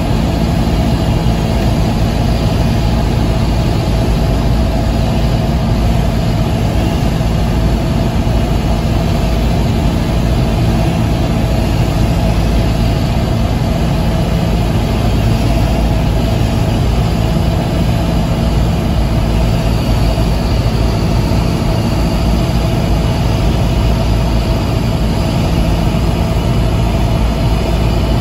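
Cessna 172S's four-cylinder Lycoming engine and propeller running steadily on final approach, heard from inside the cockpit, a constant low drone with an even rush of noise over it.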